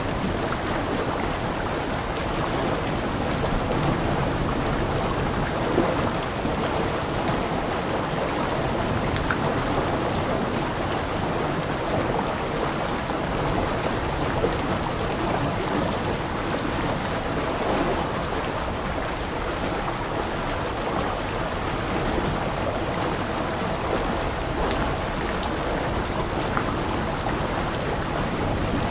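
Steady heavy rain falling, a dense even hiss with scattered individual drop ticks.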